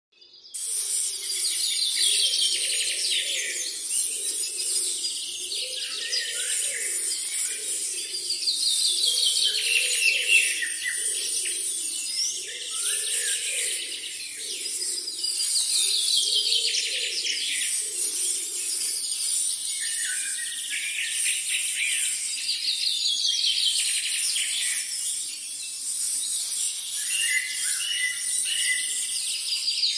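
A bird singing a descending trill of rapid notes, repeated about every seven seconds, over a steady high hiss. A lower pulsing sound runs alongside through the first two-thirds and then fades out.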